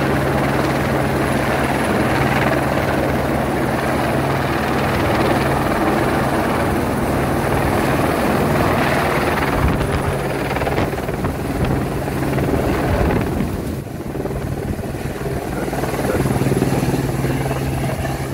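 Helicopter hovering overhead with an underslung load on a long line, its rotor and engine making a loud, steady drone with a low hum, easing off briefly about two-thirds of the way through before rising again.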